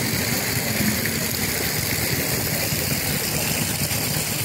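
Motor scooter engine running steadily at idle.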